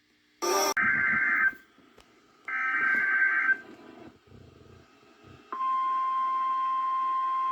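Emergency Alert System data bursts: two harsh digital screeches of about a second each. About five and a half seconds in, a steady alert attention tone begins and holds.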